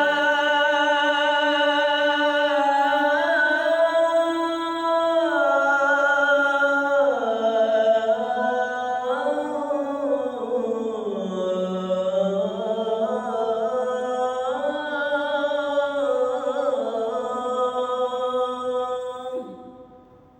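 A man's unaccompanied voice chanting the adhan, drawing out one long melismatic phrase, the "as-salah" of "hayya 'ala s-salah", whose pitch slowly climbs, dips and ornaments. The phrase fades out about a second before the end.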